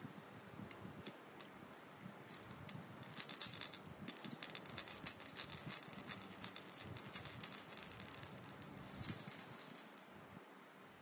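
A dry, high rattling that starts about two seconds in and stops about a second before the end, much louder than the quiet around it.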